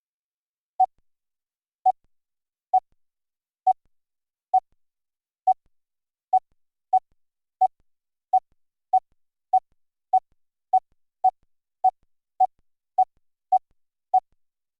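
Computer-generated Morse code (CW) tone: about twenty identical short beeps near 750 Hz, coming about one a second at first and then closer together, nearly two a second by the end.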